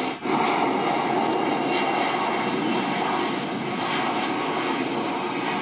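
F-15 fighter jet engines running: a steady rushing jet noise, with a brief dropout about a quarter second in.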